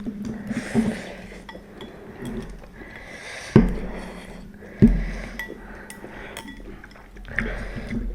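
Eating utensils clinking and knocking against bowls and dishes while noodles are eaten, with two sharper knocks about three and a half and five seconds in.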